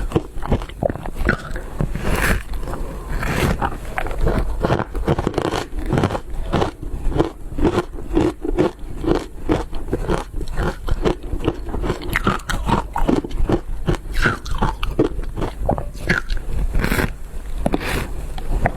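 Ice being bitten and chewed close to the microphone: continuous, rapid crunching and crackling, bite after bite.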